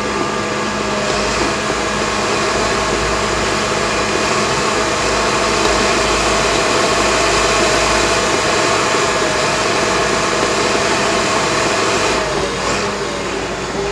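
Cat D6K crawler dozer's six-cylinder diesel engine running steadily under load as the blade pushes dirt and rock, with a steady whine and the clatter of the moving tracks. The sound eases and dips a little in pitch near the end.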